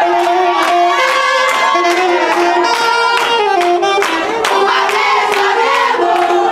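Saxophone playing a melody live over music, with steady hand clapping on the beat.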